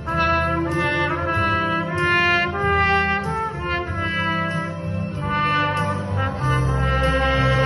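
Trumpet playing a solo melody from note to note over sustained keyboard accompaniment.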